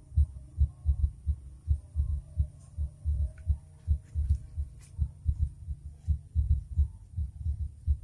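Irregular low thumping on the microphone, several thumps a second, typical of wind buffeting an outdoor phone microphone.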